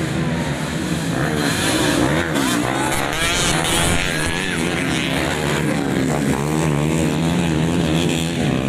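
Several modified underbone motorcycles racing, their engines revving up and down and overlapping as they pass.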